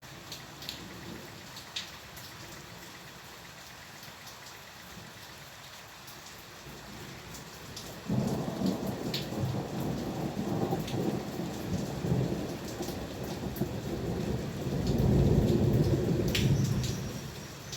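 Steady rain falling, with the odd close drop ticking. About eight seconds in, a roll of thunder breaks in suddenly and rumbles on, loudest near the end before fading away.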